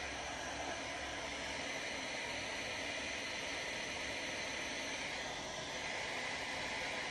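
Handheld hair dryer running steadily, blowing air through a small dog's wet fur.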